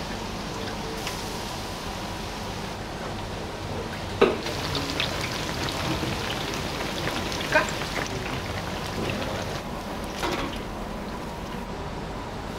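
Battered tempura frying in a deep fryer, the oil sizzling in a steady hiss. A few sharp clacks break in, the loudest about four seconds in.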